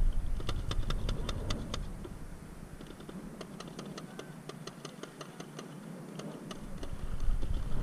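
Rapid, irregular sharp clicks, several a second, from paintball markers firing in the distance. A low rumble sits under the first couple of seconds, drops away, and returns near the end.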